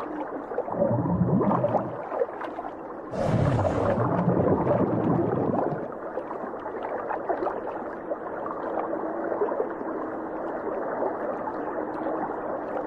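Muffled underwater sound of a scuba dive: gurgling and rumbling, dull and cut off in the highs. It swells about a second in, and there is a louder rush of bubbles about three seconds in.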